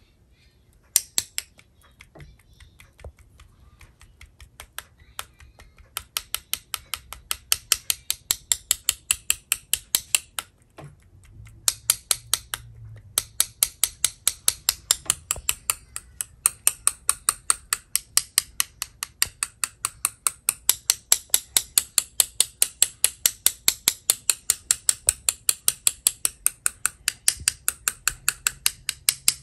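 A Chinese paintbrush loaded with white gouache tapped over and over in sharp, bright clicks to spatter white dots, the splash technique for painting fireworks. The taps start sparsely about a second in, then settle into a steady rhythm of about three a second, with one short pause.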